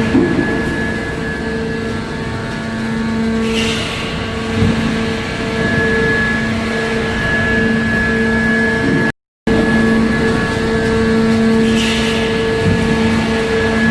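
Steady hum of heavy factory machinery, with several sustained tones over a rough noise. It cuts out briefly about nine seconds in, then the same pattern resumes.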